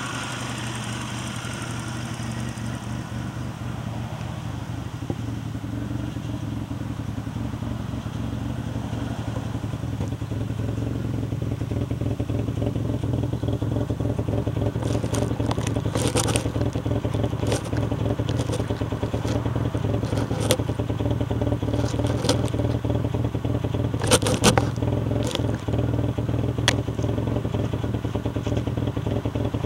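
Bored and stroked Suzuki G10 1-litre three-cylinder with a high-lift cam, held at high revs of about 5,000 rpm and heard at the tailpipe. The exhaust note grows louder over the first ten seconds or so, then holds steady. A string of sharp clicks or crackles comes through in the second half.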